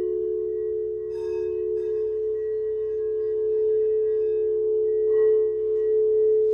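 Quartz crystal singing bowls ringing in a steady sustained drone of two close pitches, with a brief brighter shimmer of overtones about a second in.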